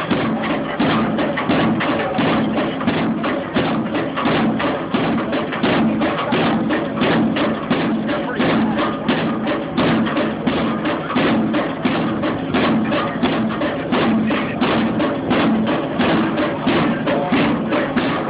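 Pile-driving hammer striking a pile in a fast, even rhythm of sharp blows, with the rig's engine running steadily underneath.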